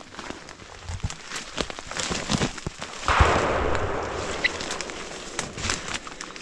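A rifle shot about three seconds in, sudden and loud, followed by about two seconds of fading echo. Before it, footsteps crunch in dry leaves.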